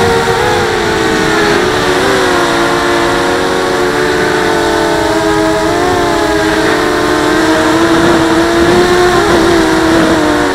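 Four brushless motors and propellers of a 250-size mini FPV quadcopter in flight, heard close up from its onboard camera: several whining tones that rise, fall and cross one another as the motors change speed, over a steady rush of prop wash.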